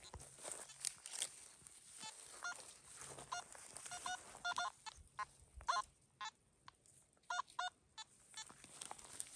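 Geese honking: a string of short, scattered honks, loudest about midway and in a quick pair about three quarters in, over light rustling.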